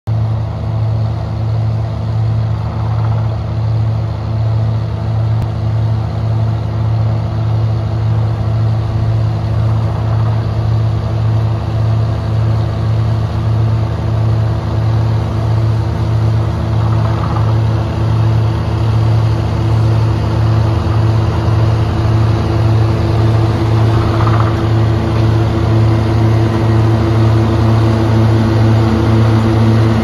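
Self-propelled grape harvester's diesel engine running steadily as the machine works along a vine row. It gets gradually louder as it draws nearer.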